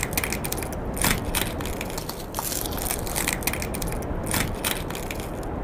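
Hands rubbing and brushing right at the microphones of a handheld recorder: a dense, crackly rustling with a deep rumble underneath and irregular scratchy streaks, played as a facial massage.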